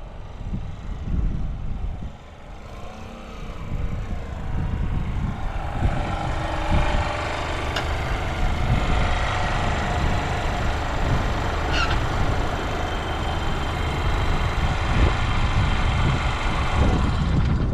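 Yamaha YBR125 single-cylinder four-stroke engine running on a test ride, getting louder from about four seconds in and holding steady, with wind buffeting the microphone. No abnormal engine noise.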